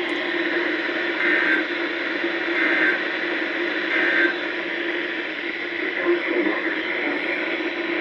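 Midland NOAA weather radio's speaker hissing with static between transmissions. Three short warbling data bursts come about a second and a half apart: the SAME end-of-message codes that close the weekly test.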